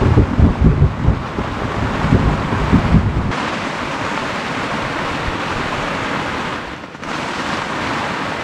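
Storm of heavy rain and strong wind: gusts buffet the microphone for about the first three seconds, then it turns to a steady, even hiss of pouring rain on the flysheet shelter.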